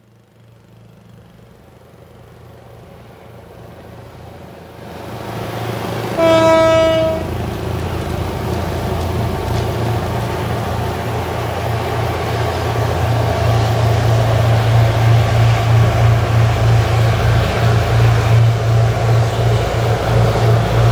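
Three diesel-electric locomotives hauling a long loaded coal train approach, their engine drone growing steadily louder. One horn blast of about a second sounds some six seconds in.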